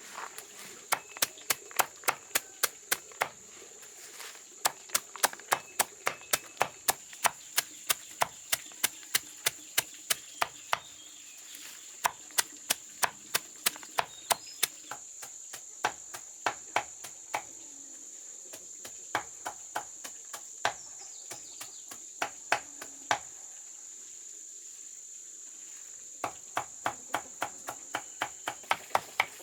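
Quick runs of sharp knocks, about three or four a second with short pauses between runs, over a steady high-pitched insect drone.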